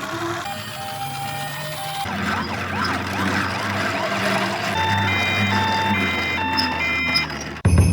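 Ambulance sirens sounding one after another: a two-tone hi-lo siren, then several overlapping rising-and-falling wail sirens, then another, higher two-tone hi-lo siren. A short, loud low rumble comes near the end.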